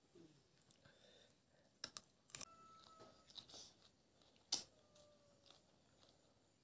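Quiet eating sounds: chopsticks clicking against a ceramic bowl and soft chewing and sipping, with a few sharp clicks, the loudest about four and a half seconds in.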